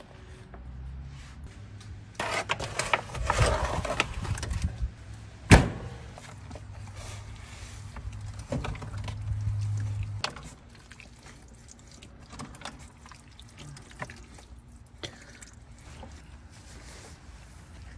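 Handling noises around a disposable aluminium foil pan: rustling and scraping, a single sharp knock about five and a half seconds in, and a low steady hum that stops about ten seconds in, followed by faint scattered clicks.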